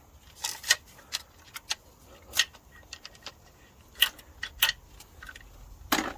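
Irregular sharp metallic clinks and clicks, about eight spread over a few seconds, from hand tools and parts being handled on a stripped-down engine.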